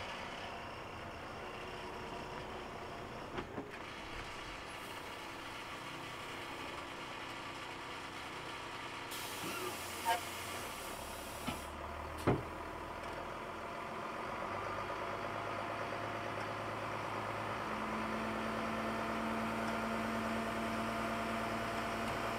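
Diesel dump truck running while its hydraulic hoist raises the bed to tip a load of chopped corn silage, the engine growing louder from about two-thirds of the way through as the bed lifts. A few sharp knocks and a short hiss come around the middle.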